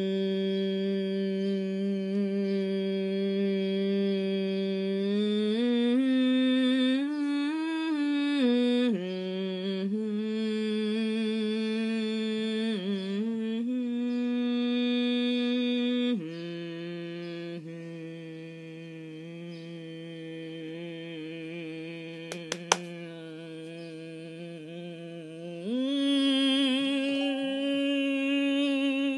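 A woman humming one unbroken hum on a single held breath, holding steady notes and wandering into a little tune. About sixteen seconds in it drops to a lower, quieter note, and it rises again near the end.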